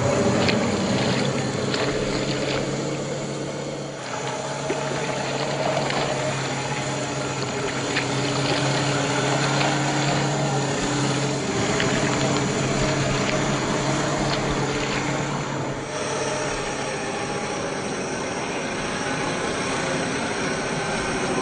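1/10-scale RC crawler on an Axial SCX10 III chassis driving through water: a steady electric motor and gear whine over splashing and wet noise. The sound changes abruptly about sixteen seconds in.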